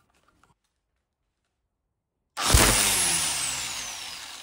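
Angle grinder with a string-and-cone attachment on its head, starting abruptly loud about two seconds in and then running with its pitch falling and its level fading. A few faint handling clicks come first.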